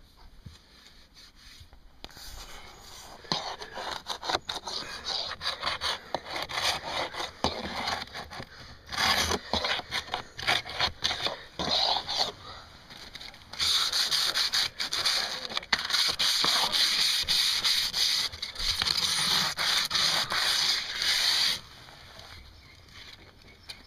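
Painted wooden siding being sanded by hand: irregular rasping strokes, then about eight seconds of fast, continuous sanding that stops near the end.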